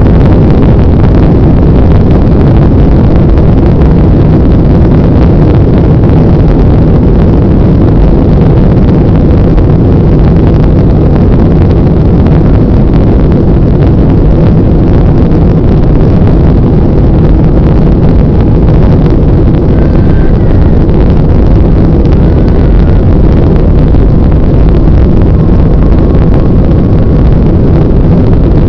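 Airbus airliner's jet engines running at takeoff thrust during the takeoff roll, heard from inside the cabin over the wing as a loud, steady roar.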